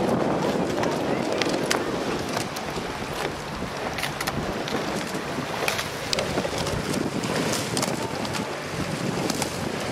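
Wind buffeting the microphone, a rough, fluctuating rumble, with a wash of water noise and scattered sharp clicks.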